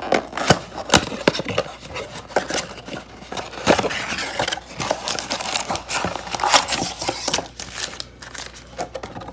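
Cardboard trading-card retail box being opened and its stack of plastic-wrapped card packs pulled out and set down: continuous crinkling and rustling with many small clicks and taps.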